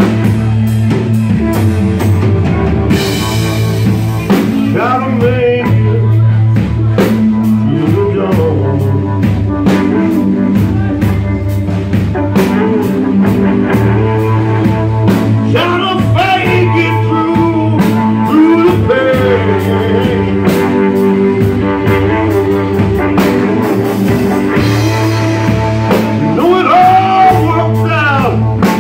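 Live rock band playing loud: electric guitar and bass over a steady drum beat, with a cymbal crash a few seconds in.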